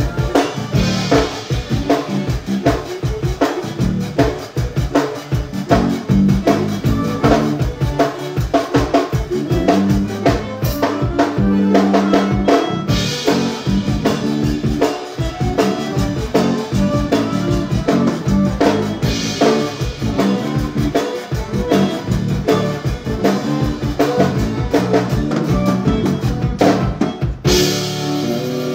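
Live zydeco band playing an up-tempo number, with a drum kit keeping a fast, busy beat under accordion and bass. About a second before the end the drums stop and held chords ring on.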